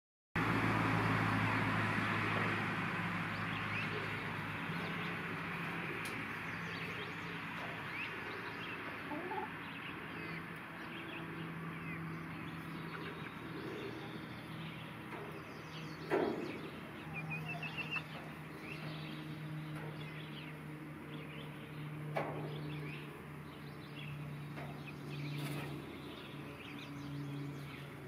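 Hens clucking and calling in a backyard flock, short calls scattered through, over a steady low hum. A couple of sharp knocks near the middle.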